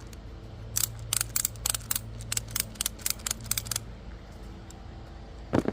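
Ratchet tie-down strap's ratchet being worked by hand: a quick run of sharp metal clicks, about five or six a second, for about three seconds, then a single knock near the end.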